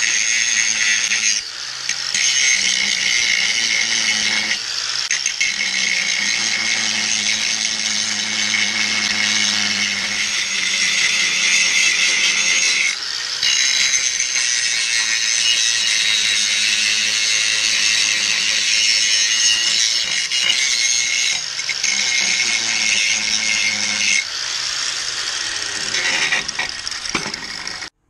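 Handheld angle grinder grinding a steel bar: a loud, steady grinding hiss over the motor's hum, dipping briefly a few times, with the motor winding down near the end.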